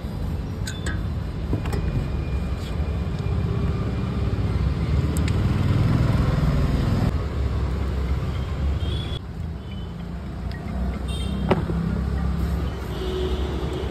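Street traffic running steadily: a continuous low rumble of passing vehicles, with a few light clicks over it.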